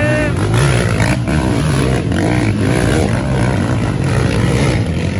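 Several racing quad ATVs climbing a dirt hill one after another, their engines running hard in a dense, continuous drone whose pitch keeps rising and falling as the riders work the throttle.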